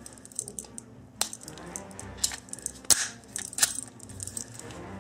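CZ-82 pistol being handled: a series of sharp metallic clicks and clacks as its slide and controls are worked, the loudest about three seconds in.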